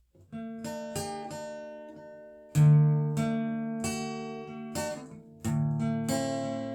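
Acoustic guitar playing slowly, with plucked notes and strummed chords that each ring out and fade; the loudest chord comes about two and a half seconds in.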